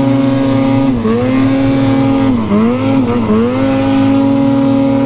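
A mountain snowmobile's two-stroke engine held at high revs while climbing through deep powder. Its pitch dips and recovers three times as the throttle is eased and reapplied.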